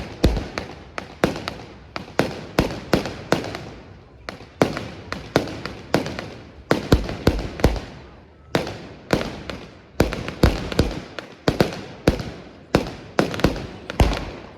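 Fireworks display: aerial shells bursting in quick succession, sharp bangs about two a second, each trailing off in an echo.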